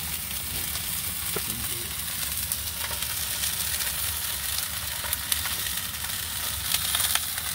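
Skinned coho salmon fillets searing in a hot cast-iron skillet: a steady sizzle with scattered small crackles, over a low steady hum.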